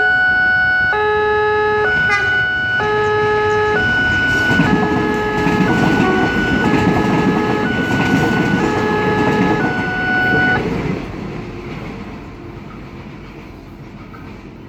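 Railway level-crossing warning alarm sounding an electronic two-tone chime, high and low notes alternating about once a second, which stops abruptly about eleven seconds in. A low rumble rises under the chime from about four seconds in and fades after it stops.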